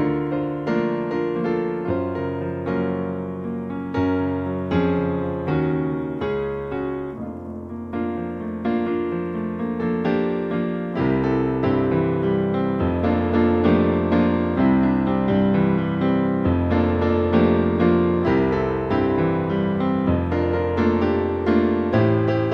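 Piano and electric-keyboard music, with notes and chords struck in a flowing pattern. It grows fuller and louder about eleven seconds in as a deeper bass line comes in.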